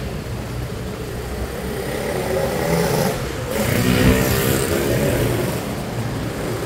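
Motorbike engine and road noise heard from on board during a ride. About three seconds in the engine note swells as it accelerates, loudest about four seconds in, then eases back to a steady run.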